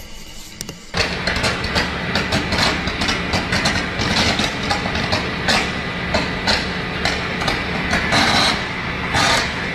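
High-voltage electrical arc crackling and buzzing loudly and without a break, starting abruptly about a second in, over a steady low hum.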